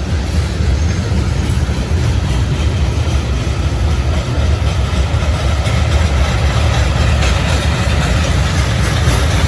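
CSX diesel freight train, a steady loud low rumble of locomotive engines and rolling cars.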